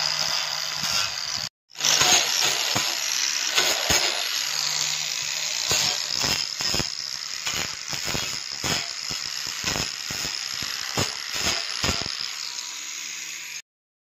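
Hand-held electric angle grinder running with a steady high whine while its disc grinds the welded joints of a stainless steel frame, with many short scraping contacts as the disc touches the metal. It drops out briefly about a second and a half in and cuts off abruptly just before the end.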